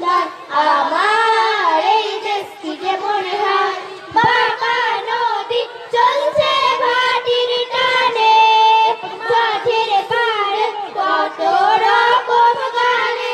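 A group of schoolgirls singing a patriotic song together, with long held notes.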